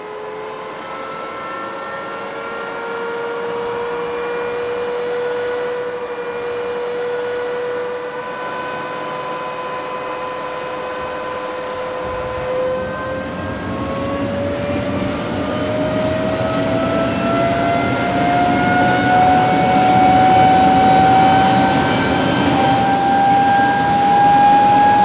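Rolls-Royce Derwent centrifugal-flow turbojet starting up: a whine rising slowly as the engine spools on the starter. About halfway through, a rushing roar joins as combustion takes hold and the whine climbs higher, with the engine accelerating toward idle.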